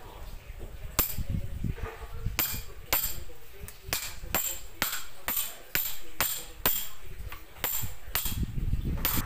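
A metal meat mallet hammering the back of a cleaver blade to drive it through a crab's shell. About seventeen sharp metallic knocks: a single strike about a second in, then a steady run of two or three a second.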